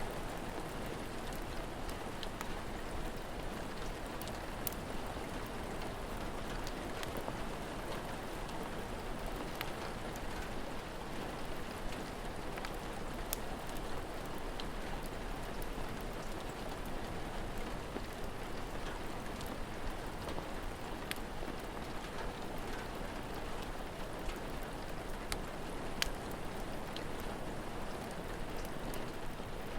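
Steady rain falling, with scattered sharp crackles from a wood fire every second or two.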